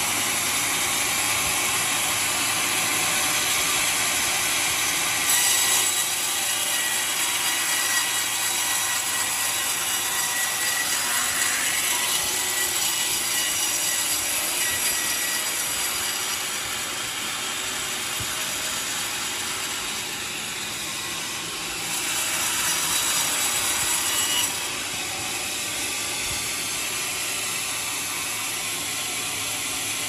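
Vertical band saw running and cutting lengthwise through a mahogany log: a steady, loud sawing noise that grows louder for stretches as the blade works through the wood.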